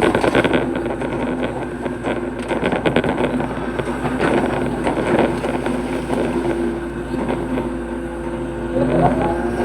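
Hitachi hydraulic excavator's diesel engine running steadily under work, with scattered knocks and scrapes, and a short rising whine about nine seconds in.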